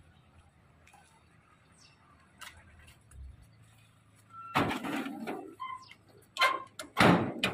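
Sliding bolt latch on a sheet-metal gate being worked open: about halfway through, a second of metal scraping, then two loud metallic clanks near the end. Faint bird chirps in the quieter first half.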